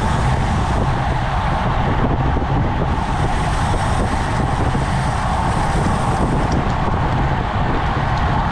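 Steady wind and road noise from riding at about 22 mph in a pack of road bikes: air rushing over the bike-mounted camera's microphone, along with tyre hum on the asphalt.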